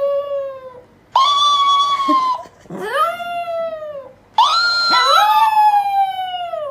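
A dog howling in a run of long, high, whining calls, each dropping in pitch as it fades.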